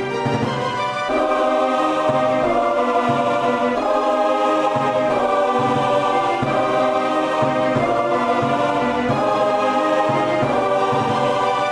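Epic orchestral background music: sustained chords that change every second or two, getting louder about a second in.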